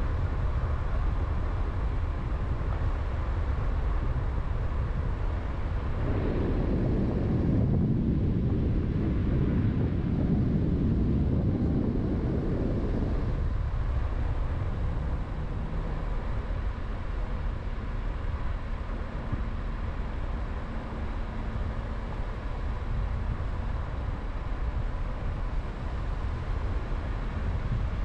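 A car driving along a paved road, heard from inside the cabin: a steady low rumble of engine and tyres. It grows louder about six seconds in for roughly seven seconds, then settles back.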